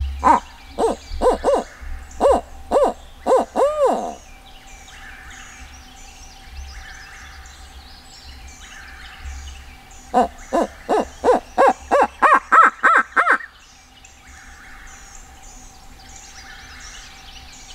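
A turkey hunter calling in imitation of a barred owl, the classic owl locator call used to make a gobbler shock-gobble. There are two rhythmic series of hoots: the first ends in a long drawn-out note, and the second, with about eleven notes, begins about ten seconds in.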